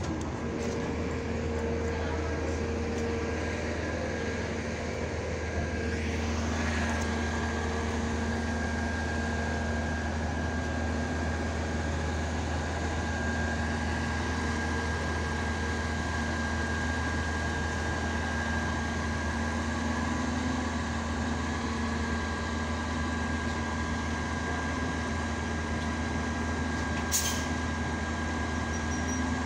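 NABI 60-BRT articulated CNG bus standing at the stop with its engine idling: a steady low hum with a constant high whine over it. Near the end comes one brief sharp sound as the doors close.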